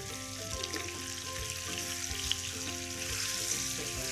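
Boiled potatoes sizzling steadily as they fry in hot oil in a pan, with soft background music underneath.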